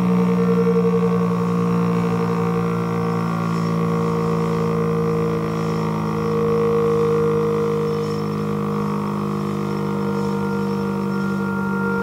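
Distant Whelen Vortex outdoor warning sirens sounding: a steady drone of several held tones that swells and fades slowly, with a higher tone coming in near the end.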